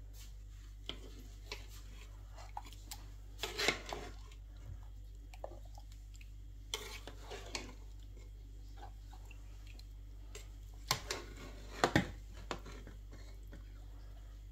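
Scattered clinks and scrapes of a spoon against a pot of thick soup being stirred, with a louder cluster about eleven to twelve seconds in, over a steady low hum.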